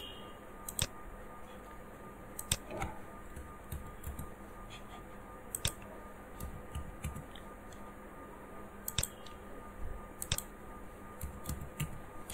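Computer mouse and keyboard clicks: single sharp clicks a few seconds apart, then a quicker run of key presses near the end, over a faint steady electrical hum.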